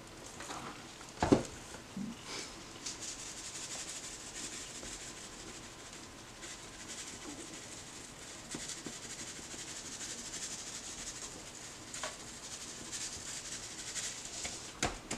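Gloved hand rubbing dry seasoning into the skin of a raw whole duck on a plastic cutting board: a soft, steady rubbing, with one louder knock about a second in.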